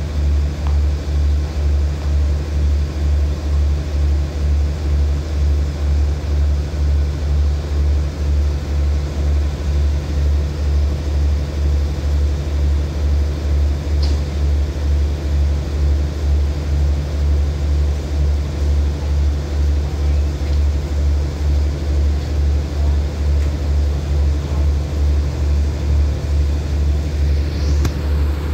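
Diesel engine of a standing passenger train idling, a steady low throb that pulses regularly in loudness.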